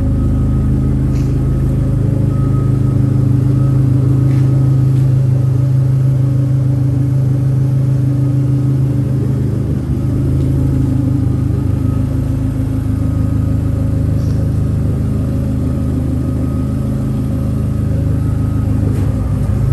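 Dodge Neon SRT-4's turbocharged 2.4-litre four-cylinder idling: a steady low rumble.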